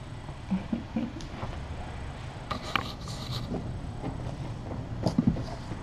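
Kittens playing with toys on a shaggy rug: soft scratching, rustling and small thumps, with a brief louder scratchy rustle about two and a half seconds in and a few light knocks near the end.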